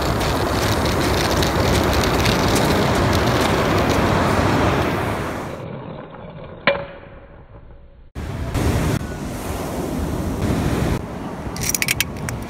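Ocean surf with wind buffeting the microphone. About six seconds in it gives way to a quieter stretch with a single sharp click, then the wind and surf noise cuts back in.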